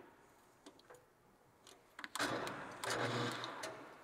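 Small metal lathe with a stainless steel flex bellows clamped in its chuck. It is near silent at first, with a couple of faint clicks. About two seconds in comes mechanical noise with a brief low motor hum, fading near the end.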